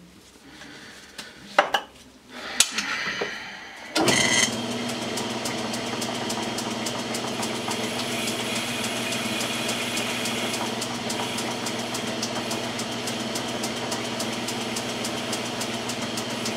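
Metal lathe switched on about four seconds in and running steadily at speed, a steady hum with a fine, even ticking from the spinning chuck. Before it starts, a few knocks and clicks from hands working at the lathe.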